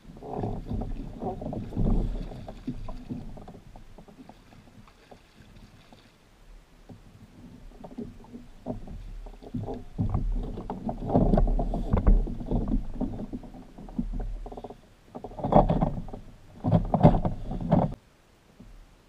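A large hooked rainbow trout splashing and thrashing in the water beside a kayak and in the landing net, in irregular bursts that come loudest toward the end.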